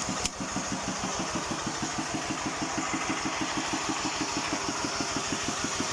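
Thale Thong 11-horsepower single-cylinder diesel walking-tractor engine idling with an even, rapid chug; the speaker calls the idle very steady. A single sharp click sounds about a quarter second in.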